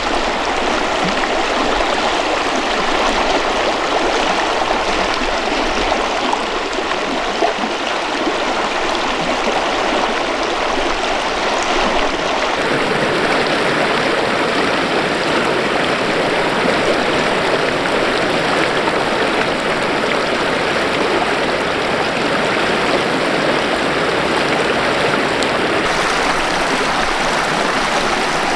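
Mountain river flowing over rocks: a loud, steady rush of water, its tone shifting slightly about twelve seconds in.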